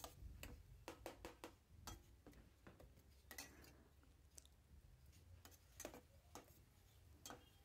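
Near silence with faint, scattered clicks from a pan of onion paste and tomato frying in mustard oil while a steel spoon stirs it.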